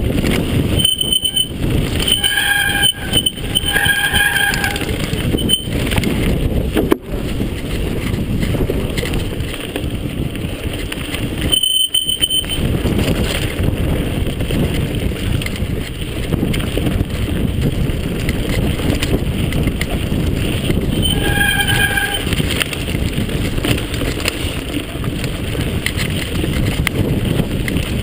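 Mountain bike rolling fast down a rough dirt trail: continuous rattling and rumble of the tyres and frame, with wind on the handlebar-mounted camera. Short, high squeals of the disc brakes cut in several times, clustered in the first few seconds, again near the middle and late on.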